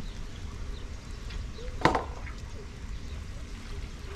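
Rice and water pouring from a large metal pot into a plastic basin. About two seconds in there is a single sharp metallic clank that rings briefly.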